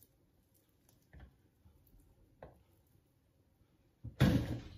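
Hands pulling cooked chicken off the bone over a stainless steel bowl: a few faint soft squishes and small ticks, then one much louder noise lasting about half a second about four seconds in.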